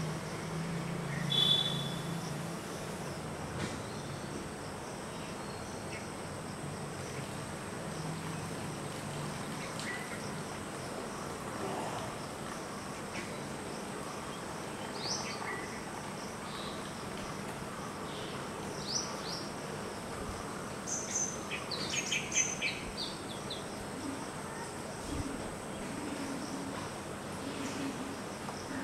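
Pond-side outdoor ambience: a steady insect drone with scattered short high bird chirps, most of them between about 15 and 23 seconds in. A brief, louder chirp about a second and a half in is the loudest sound.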